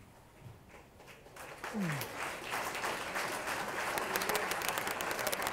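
A room of guests applauding, starting about a second and a half in and carrying on steadily. As it begins, one voice gives a short falling call.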